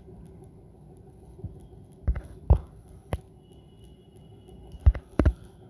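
About five soft, sharp clicks or knocks at irregular intervals, two of them close together near the end, over a low steady background hum.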